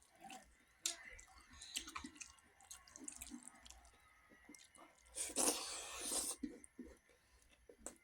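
Close-up eating sounds of rice and buffalo meat: scattered wet chewing clicks and smacks. About five seconds in, a louder noisy sound lasts just over a second.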